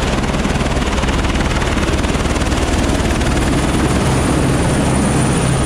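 Airbus AS350 Écureuil single-turbine helicopter running, its rotor and engine noise loud and steady.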